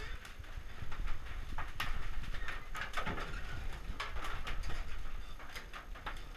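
Irregular knocks and clicks as a plank wooden door is handled and its metal sliding bolt latch is worked.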